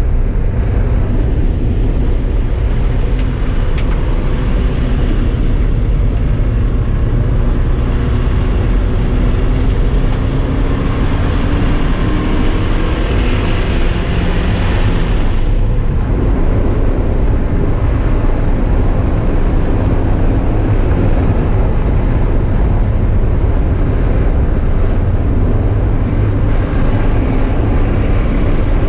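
Porsche 944's four-cylinder engine heard from inside the car at speed, pulling with its pitch rising steadily for about ten seconds. About halfway through the note cuts back suddenly, and steady engine and road noise follow.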